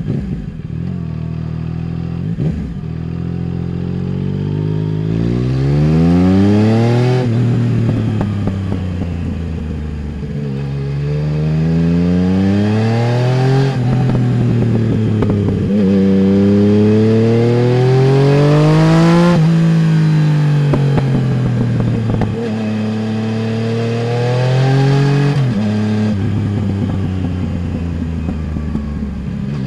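Yamaha Tracer 900 GT's three-cylinder engine through a full Roads Italia aftermarket exhaust, pulling hard and rising in pitch through the gears, with a sudden drop at each upshift. Between pulls it winds down on the overrun with some crackles.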